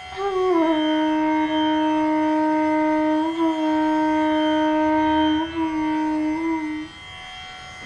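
Bansuri (long bamboo flute) playing a slow phrase in raag Patdeep: a short gliding ornament into one long held note, with small turns partway through, cutting off near the end. A steady drone sounds underneath.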